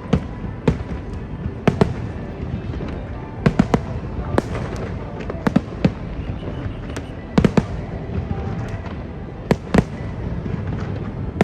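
Aerial fireworks bursting: repeated sharp bangs at irregular intervals, often in quick pairs or clusters, over a continuous low rumble from the display.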